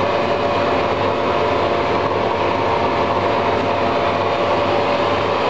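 Steady mechanical background noise in a machine shop: a constant rushing hum with a couple of steady tones held through it, with no change or break.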